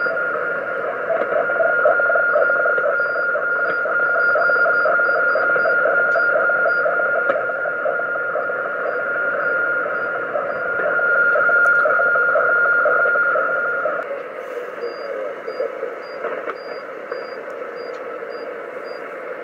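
Shortwave receiver audio from a Kenwood TS-450S transceiver in upper-sideband mode, tuned to about 8.891 MHz: a steady whistle over hiss and a fast, buzzing, rhythmic signal. The whistle cuts off about fourteen seconds in, leaving fainter band noise and crackle.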